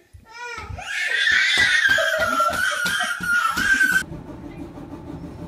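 A toddler screams and wails in a loud, very high-pitched cry while an adult laughs in quick bursts. It cuts off suddenly about four seconds in, giving way to a steady low hum.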